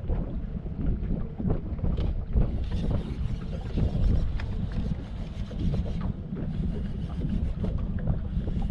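Wind buffeting the microphone aboard a small fishing boat, an uneven low rumble that rises and falls in gusts.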